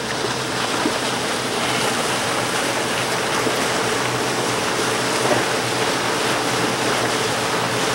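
Steady rushing noise of river water and wind at the waterside, with a faint low steady hum underneath.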